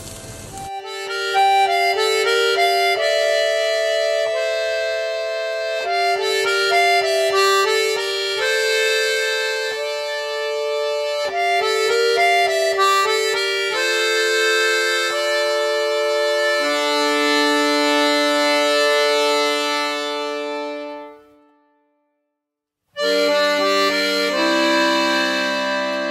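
Background instrumental music playing a melody of held notes. It fades out about twenty-one seconds in, drops to silence for about a second, then a new passage starts.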